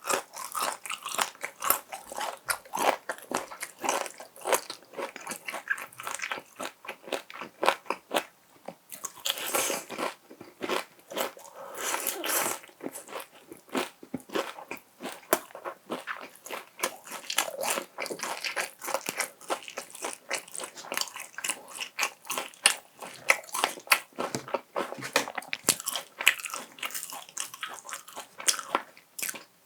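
Crisp crunching bites and chewing of Kyochon Honey Combo fried chicken, its glazed coating cracking in many sharp crunches one after another.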